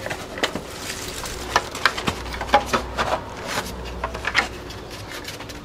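Hands handling the plastic casing and cover of a Wallbox Pulsar Max EV charger: scattered rubbing with irregular clicks and knocks, about five of them sharper.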